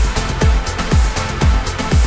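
Electronic dance music with a steady four-on-the-floor kick drum, about two beats a second.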